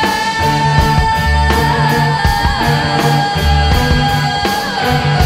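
Rock band music with bass, drums and electric guitars. One long high note is held across the whole passage over a pulsing bass line.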